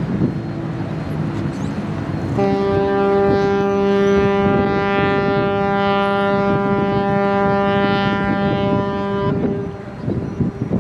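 Ship's horn sounding one long, steady blast of about seven seconds, starting a couple of seconds in, with wind buffeting the microphone around it.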